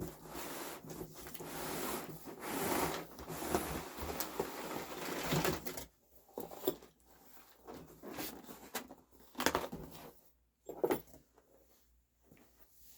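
Cardboard shipping box and packing material being handled: a continuous rustling and scraping for about six seconds, then scattered shorter rustles and light knocks as the box is opened and the contents are worked out.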